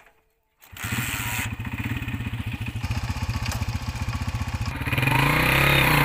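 Honda CG 125's single-cylinder four-stroke engine running with an even, rapid beat. About five seconds in it gets louder and a whine joins in as the rear wheel spins the pulley of a tubewell water pump.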